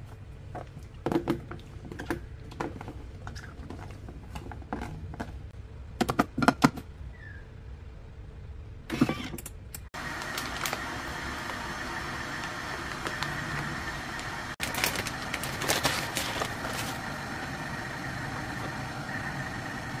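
Kitchen handling sounds: scattered knocks and clicks of utensils and containers over a steady appliance hum, which turns louder and steadier after a cut about halfway through.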